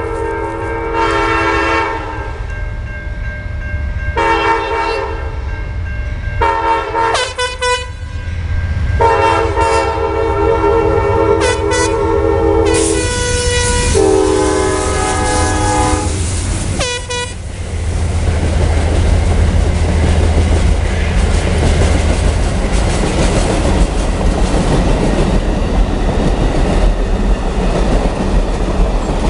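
Amtrak locomotive's multi-chime air horn sounding several long and short blasts for the crossing. The horn stops about 17 seconds in, and the passenger train then rolls past with steady wheel-on-rail rumble and clatter.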